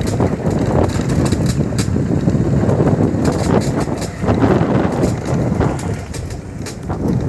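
Motor vehicle running along a bumpy dirt road: a steady low engine-and-road drone, with wind buffeting the microphone and frequent short knocks and rattles.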